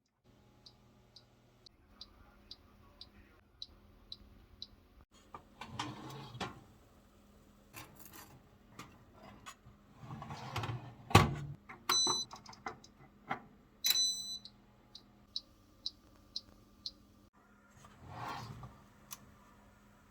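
Short high electronic beeps repeating about twice a second, near the start and again late on, with two longer multi-tone beeps around the middle. Scattered clicks and knocks of something being handled come between them.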